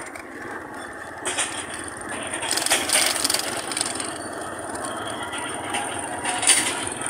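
A motor vehicle driving along a rough dirt road: steady engine and road noise, with a few brief louder jolts and rattles.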